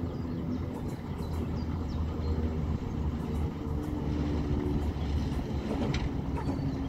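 TU2 narrow-gauge diesel locomotive's V12 engine running as it approaches along the track, a steady low hum with a few light clicks.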